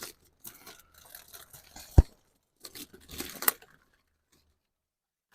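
Plastic dashboard parts being handled: scattered crinkling and rustling, a single sharp knock about two seconds in, and a denser crinkling burst around three seconds, then quiet.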